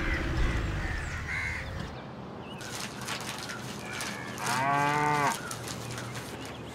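A cow moos once, a short call of just under a second about halfway through. A low hum at the start cuts off about two seconds in.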